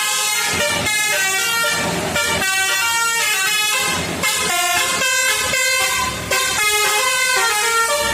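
Bus basuri telolet horn playing a tune, its air-horn tones stepping quickly from note to note.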